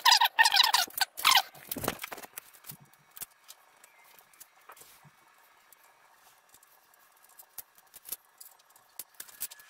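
Gloved hands working on a metal lathe headstock: about a second and a half of squeaky scraping, then a dull thump, then scattered light clicks and taps as parts are handled.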